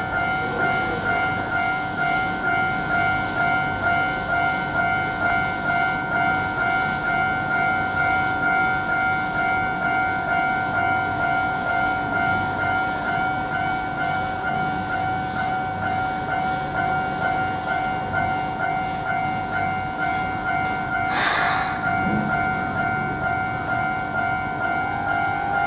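An electric commuter train standing still at a platform, giving off a steady high-pitched whine that pulses about twice a second. A short hiss about 21 seconds in.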